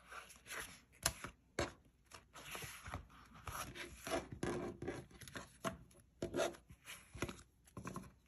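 Paper sticker sheets and a clear plastic zip case being handled: irregular rustling of paper and plastic, broken by sharp taps and clicks as the sheets are stacked and squared.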